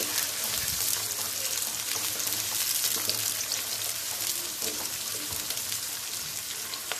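Sliced onions sizzling steadily in hot oil in a nonstick wok, with fine crackling, stirred with a wooden spatula.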